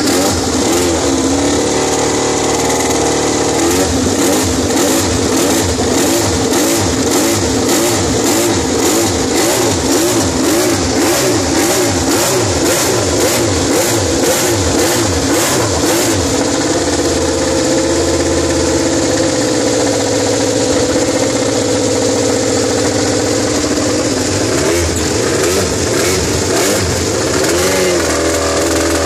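Ducati Desmosedici MotoGP V4 race engines running, revved in quick blips about twice a second through the first half. The engines then hold a steadier fast idle, and the revs rise and fall again near the end.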